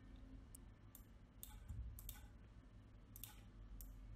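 Faint computer mouse clicks, about six of them at uneven intervals, a couple in quick succession, over a low steady hum.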